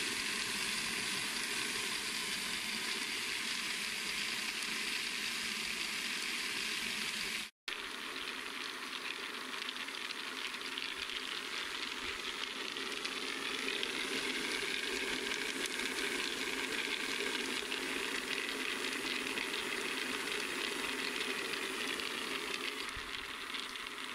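Hundreds of small round firework stars tumbling in a rotating star-rolling bowl, a steady hissing rattle of pellets rolling over each other and against the bowl wall. It breaks off for an instant about seven and a half seconds in.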